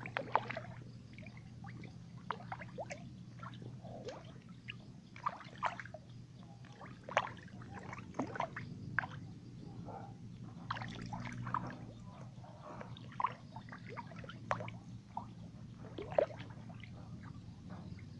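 Fish feeding at the surface of a pond: scattered small splashes, drips and pops of water as they rise and gulp, at irregular moments and a few to the second.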